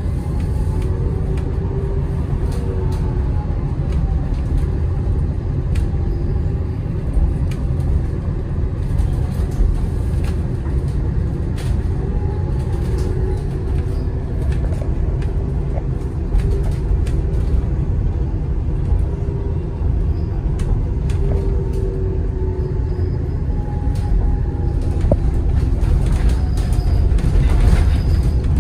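Inside a BYD Alexander Dennis Enviro200EV battery-electric bus on the move: heavy road and tyre rumble with small rattles, and the electric drive's faint whine rising and falling in pitch as the bus speeds up and slows. A hiss swells briefly near the end.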